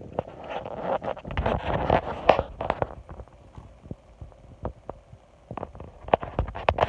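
A hamster scrabbling and rustling through crinkled paper bedding close to the microphone, with irregular soft knocks and clicks. The rustling is densest in the first three seconds, then thins to scattered clicks that pick up again near the end.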